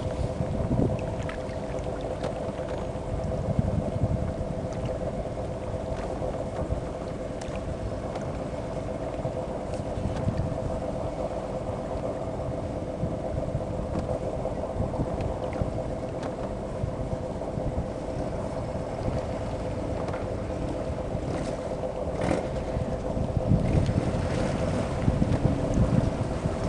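A boat engine running steadily, a constant two-note hum, with wind buffeting the microphone that grows stronger near the end.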